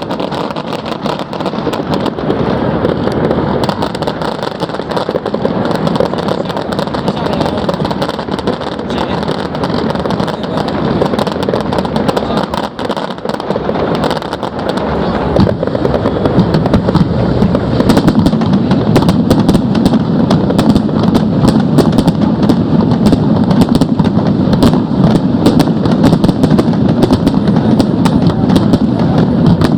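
Fireworks going off without a break: dense crackling and pops over a steady rumble of bursts, growing louder and busier about halfway through.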